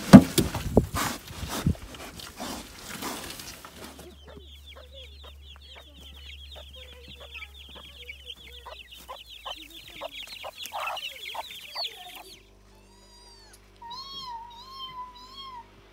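Pigs jostling and grunting at a feeding trough, then chickens clucking over a dense, rapid high chirping. Near the end, kittens give a few high mews.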